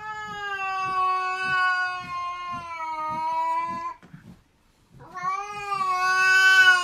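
A cat yowling: one long, steady, drawn-out yowl of about four seconds. After a pause of about a second, a second yowl begins and is still going at the end.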